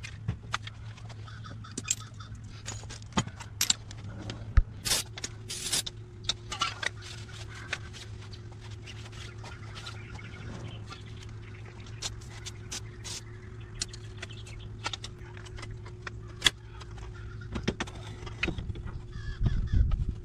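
Scattered clinks, clicks and scrapes of metal parts and hand tools being handled during front suspension work on a Jeep Cherokee XJ, over a steady low hum.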